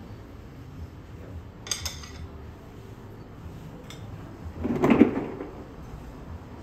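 Kitchen handling sounds: a short light clatter about two seconds in, a click, then a louder dull thump about five seconds in, over a faint steady background.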